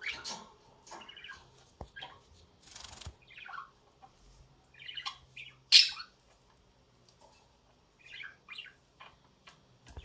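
Budgerigar chirping in short, scattered bursts, with one louder, sharper chirp a little past halfway.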